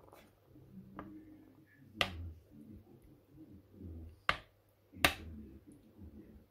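Metal spoon stirring curry sauce in a pot, knocking against the pot four times with sharp clicks, the second and fourth the loudest, over a soft stirring sound from the sauce.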